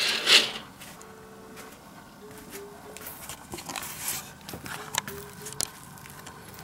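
A sharp fabric swish at the very start, then soft rustling and light clicks as a futon duvet is handled, over quiet background music.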